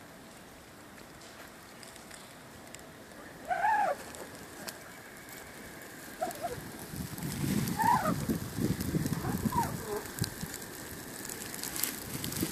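Geese honking a few times, short rising-and-falling calls spaced a few seconds apart, most likely Canada geese. From about halfway in, a low crackling rush builds underneath, the sound of the grass fire burning.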